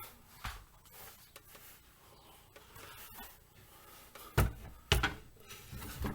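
Handling noise: faint rubbing and rustling, then two sharp knocks about half a second apart near the end.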